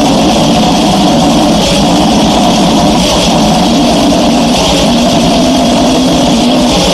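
Harsh, heavily distorted goregrind noise music: a loud, unbroken wall of noise with a fast pulsing low end.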